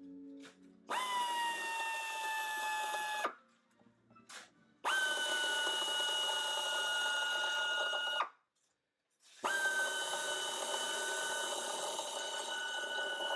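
Pneumatic air drill running in three bursts of a few seconds each, a steady high whine that settles slightly lower just after each start; the last burst runs on past the end.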